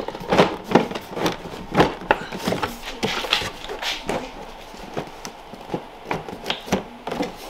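Irregular clicks, knocks and rubbing of a Ski-Doo snowmobile's plastic side panel being pulled and pried at by hand to free it from its clips.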